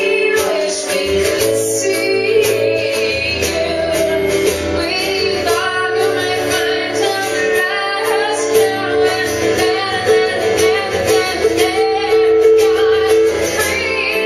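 Live music: a woman singing with an acoustic guitar accompanying her.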